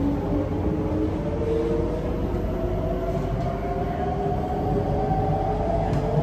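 Singapore MRT East-West Line electric train running, its motor whine rising slowly in pitch over a steady rumble as it gathers speed.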